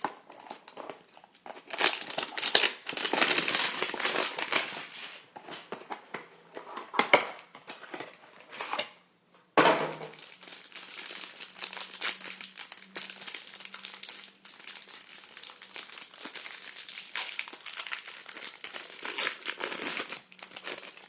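Packaging of a trading-card hanger box being torn and crinkled open, in irregular bursts. There is a short gap about nine and a half seconds in, then steadier crinkling.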